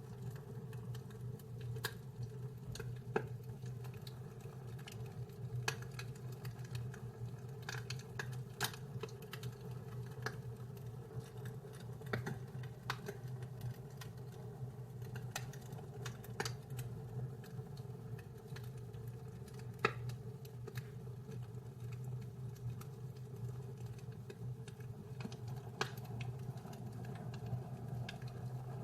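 Wood fire crackling in a fireplace: irregular sharp pops and snaps scattered through, over a steady low hum.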